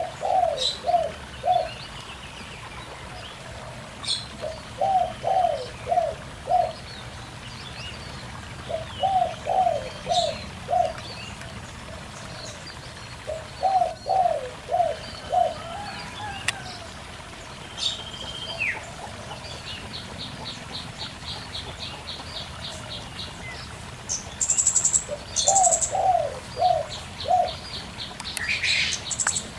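Zebra dove (perkutut) cooing in phrases of about five quick notes, repeated every four to five seconds, over the steady babble of a shallow stream. Small birds chirp higher up, with a fast ticking trill about two thirds of the way in and sharp high calls near the end.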